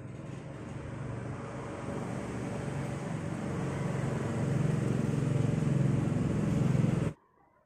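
A motor vehicle's engine rumbling and growing steadily louder as it draws nearer, then cutting off abruptly about seven seconds in.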